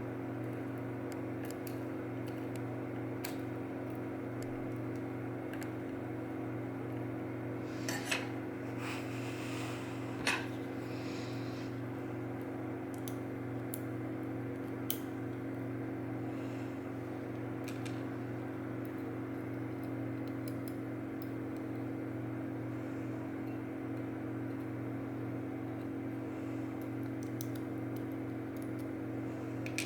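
Small metal clicks and clinks of Mul-T-Lock Interactive lock pins and tools being handled while the cylinder is taken apart, a few sharper clicks about 8, 10 and 15 seconds in, over a steady electrical hum.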